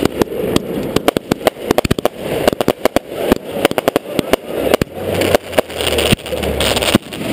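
Consumer aerial fireworks going off overhead: an irregular, rapid run of sharp pops and bangs, several a second, as shells burst in the sky.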